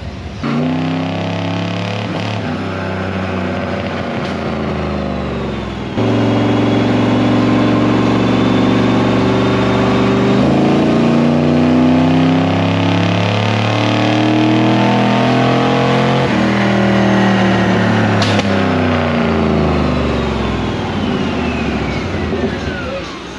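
The LS3 V8 of an LS-swapped 1957 Chevy Bel Air doing wide-open-throttle pulls on a chassis dyno, its note climbing steadily through the revs. About six seconds in, it cuts abruptly to a second, louder pull that climbs, then winds back down in pitch toward the end. A single sharp click comes about two-thirds of the way through.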